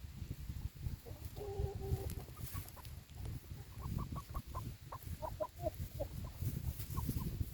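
Chickens clucking: a drawn-out call about a second and a half in, then a run of short clucks, over a low rumble.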